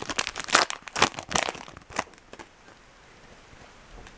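Foil trading-card pack wrapper crinkling and tearing in quick irregular crackles as it is pulled open, stopping about two seconds in.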